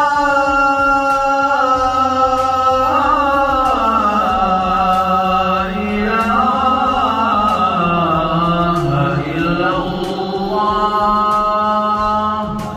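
Unaccompanied solo vocal chant: one voice holding long, ornamented notes that slide down through the middle and settle on a steady note near the end.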